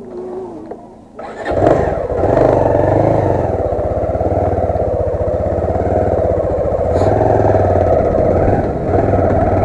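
Motorcycle engine running as the bike rides along. It comes in suddenly about a second in, rises and falls in pitch briefly, then runs steadily.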